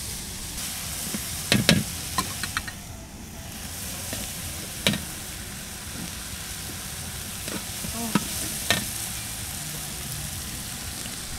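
Sliced pork sizzling and frying in a large steel wok, a steady hiss. A handful of sharp metal clanks of utensils against the wok and pots come through it, the loudest about five seconds in and again near the end.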